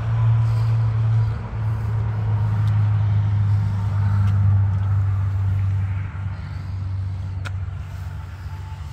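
Pickup truck's engine idling with a steady low hum, easing a little about six seconds in. A single sharp click about seven and a half seconds in.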